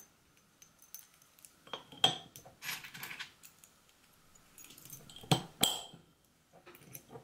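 Glass lid with a rubber sealing ring being fitted onto a small glass jar: a series of separate glass clinks and knocks. The loudest come about two seconds in and twice more a little after five seconds, each with a short ringing.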